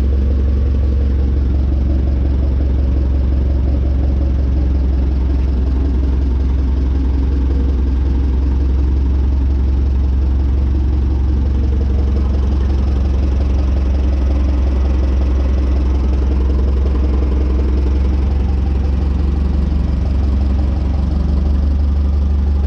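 Clark forklift engine running steadily with a low, even hum while its hydraulic mast is worked with a newly installed lift cylinder; the hydraulic system is low on fluid.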